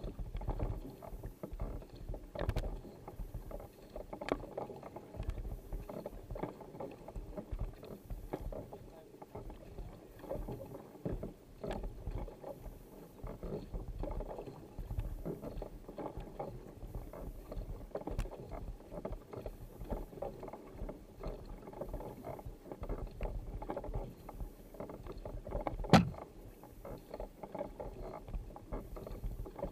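Sprint kayak being paddled hard: the paddle blades catch and pull through the water with splashing, stroke after stroke. One sharp knock about 26 seconds in is the loudest sound.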